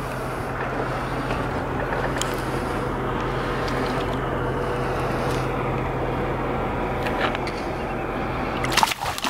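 Water sloshing against the side of a boat as a large zander is held in the water to revive it before release, with a steady low hum underneath that fades out near the end. A short splash comes near the end as the fish swims off.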